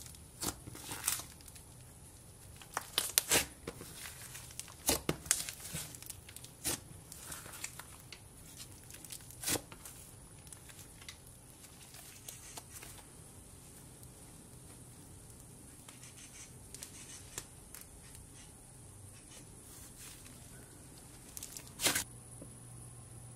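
Thick black slime squished and kneaded by hand, giving crisp clicks and crackling pops, dense in the first ten seconds and sparser after. Near the end kinetic sand is squeezed and crumbled, with a brief loud crunchy burst.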